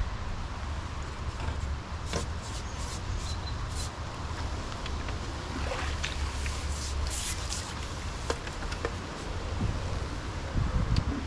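Wind buffeting the microphone as a steady low rumble, with brief high rustling crackles twice: about two seconds in and again around six to seven seconds.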